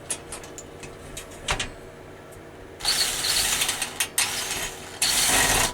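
Toggle bolts holding a wall-mount rack to a wood backboard being tightened with a tool: a few light knocks, then two bursts of rapid mechanical clicking, a longer one and a shorter one near the end.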